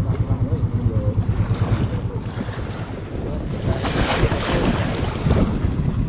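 Wind buffeting the microphone over choppy sea water, with waves washing and splashing; the wash swells about four seconds in.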